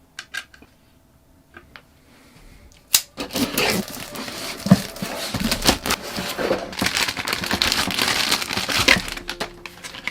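Packaging being handled: a sharp click about three seconds in, then several seconds of dense crinkling and rustling.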